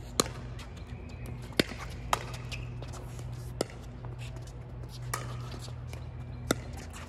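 A pickleball rally: about six sharp pops of paddles striking the plastic ball, at uneven gaps of half a second to a second and a half, over a steady low hum.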